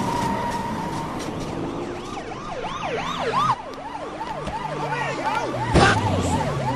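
Police siren yelping, a rapid rising-and-falling wail that starts about two seconds in, over engines running. A sharp thump cuts across near the end.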